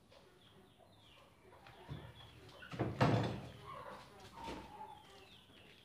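A thin cut wooden board panel set down on a wooden workbench: a knock about two seconds in, then a louder thud a second later. Small birds chirp throughout.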